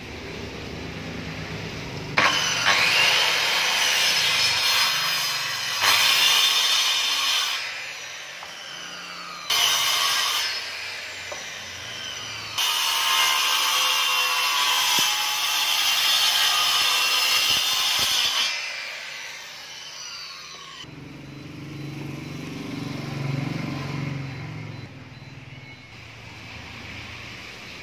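Hand-held electric circular saw with an edge guide ripping along hardwood timber in several passes: the saw spins up about two seconds in, cuts loudly, pauses, cuts again and spins down. A quieter low rumble follows in the last several seconds.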